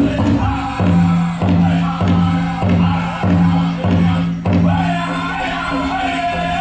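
Powwow drum group singing a chicken dance song, high voices over a steady beat on a big drum struck about one and a half times a second.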